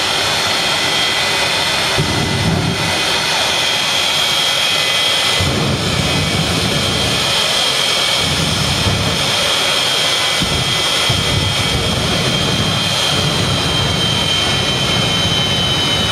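Jet engine running at full power, a steady roar with a high whine that sags slightly near the end, its exhaust flame torching a burning car.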